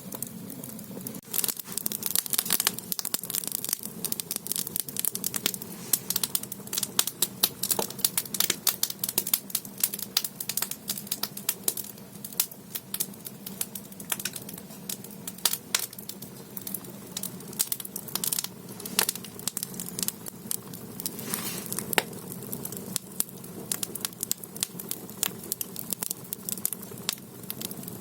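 Split firewood burning in an ondol firebox, crackling and popping irregularly with many sharp snaps over a steady low rumble of the fire.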